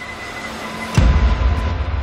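Electronic intro music: a rising build-up, then a sudden heavy bass hit about a second in, followed by a deep, sustained bass.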